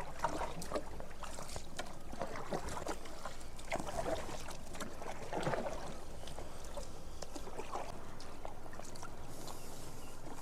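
Small country boat being rowed on a river: water splashing and dripping from the strokes, with scattered light knocks.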